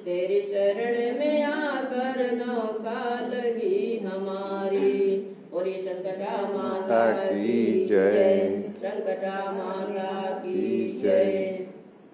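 Voices chanting a Hindu devotional prayer to a sung melody, phrase after phrase, with a short break about five seconds in; the chanting stops near the end.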